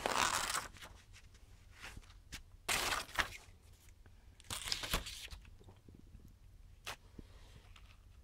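Paper pages of a comb-bound manual being turned and pressed flat: a rustle at the start, another about three seconds in and a third about five seconds in, with a single sharp tick near seven seconds.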